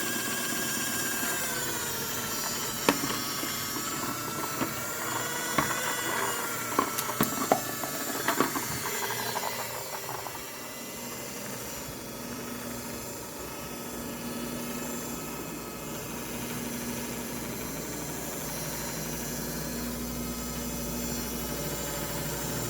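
Mini washing machine's motor running with a whine that wavers in pitch, over a series of sharp knocks in the first half, then settling into a steadier drone with a low hum.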